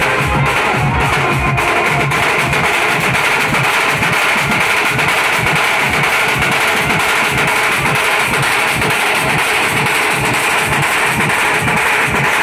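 A group of large barrel drums beaten with sticks together in a fast, steady, driving rhythm, many drums at once.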